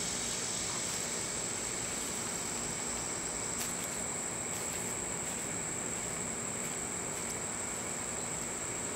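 Steady high-pitched insect chorus holding one even pitch over a constant background hiss, with a couple of faint ticks midway.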